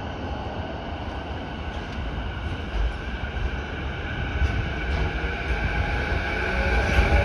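JR East E233-5000 series electric commuter train pulling away from a platform. It gives a steady electric whine over a low rumble, both growing louder as it gathers speed past the listener.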